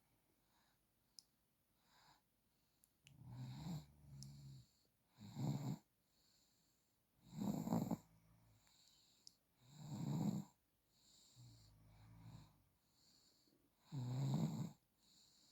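An 8-month-old baby snoring in sleep, one snore with each breath about every two seconds. The snores are faint for the first few seconds, then louder, with some stronger than others.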